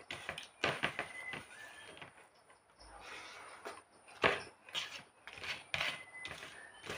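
Close-up chewing and lip-smacking of someone eating rice and pork by hand: irregular wet mouth clicks and smacks, with a quieter pause in the middle.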